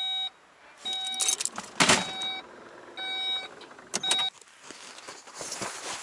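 A car's electronic warning chime beeping about once a second, five times, then stopping, while gear is shifted around inside the car with rustling and a sharp knock about two seconds in.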